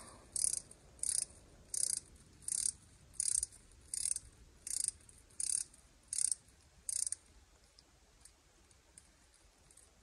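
A 10 mm ratchet clicking in short runs, about ten strokes evenly spaced under a second apart, stopping about seven seconds in, as it loosens the bolts of a 1989 Toyota Camry's automatic transmission pan.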